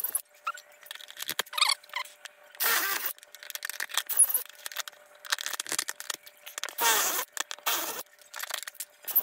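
Cordless drill run in short bursts, about eight times, its bit squealing as it bores through the dinghy's transom.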